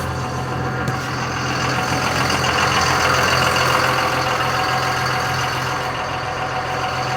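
Truck engine idling steadily. A rushing noise swells and fades between about two and five seconds in.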